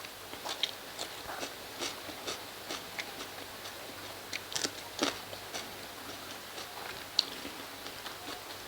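Close-miked wet chewing of dal and rice: irregular smacks and mouth clicks, roughly two a second, with one sharper click a little after seven seconds.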